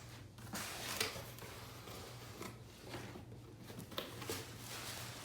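Handling of an unopened shipping package: soft rustling and scraping, with a sharper click about a second in and another about four seconds in.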